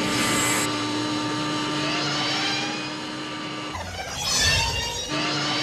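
Science-fiction film sound effect: a steady low hum under a hiss, with rising whistling tones sliding up over it. About four seconds in, a brighter, different burst briefly replaces it, and then the hum returns.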